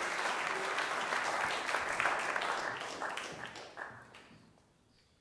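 A small audience applauding, the clapping thinning out and dying away about four seconds in.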